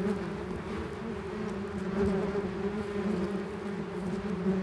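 Many yellowjackets buzzing around an underground nest that has just been dug open, a continuous droning hum. The swarm is agitated and defending the nest.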